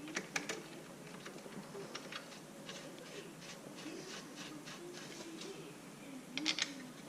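Light clicks and small metal taps from handling parts and hand tools on a workbench. The two loudest bursts of clicks come just after the start and about six and a half seconds in.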